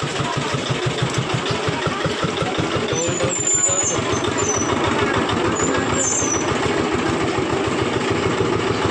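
Busy street noise dominated by a vehicle engine running close by, a steady low pulsing throat. A few brief high squeaks come about three seconds in and again near six seconds.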